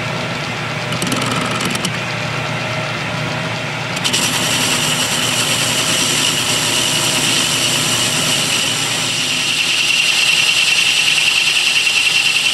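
Atlas metal lathe running while a carbide-insert tool faces off the end of a cast iron bar. The cut starts about four seconds in, adding a steady high scraping hiss over the machine's running noise, a little louder near the end.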